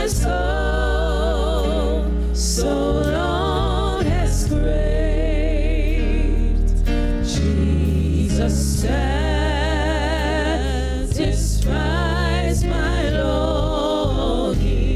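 Gospel worship singing: several women's voices sing with a wavering vibrato over steady low accompaniment notes.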